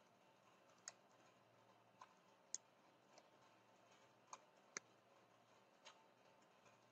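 Faint, sparse computer keyboard keystrokes: about eight short, separate clicks at uneven intervals.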